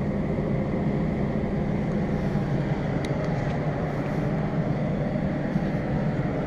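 Steady low rumble of outdoor background noise with no machine starting or stopping; the air conditioning units are off. A faint tick sounds about halfway through.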